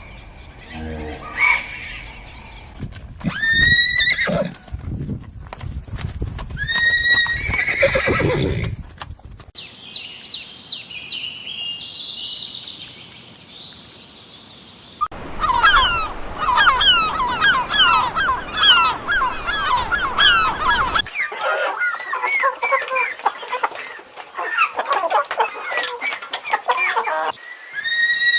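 A horse neighing twice, each whinny starting high and falling away with a quaver, in the first third. Then a long stretch of rapid, high-pitched chirping calls, many overlapping, in several separate clips.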